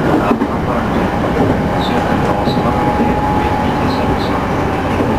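JR Central 211 series electric motor car running on the line, heard from inside: a continuous wheel-and-rail rumble with a steady whine that rises slightly, and a few pairs of short clicks from rail joints. This car is labelled as one that makes an abnormal noise.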